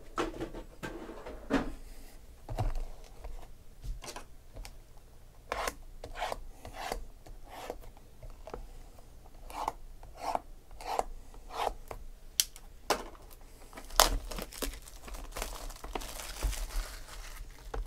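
Cardboard trading-card boxes being handled, with scattered light knocks and rubbing, then plastic shrink wrap tearing and crinkling as a box is unwrapped in the last few seconds.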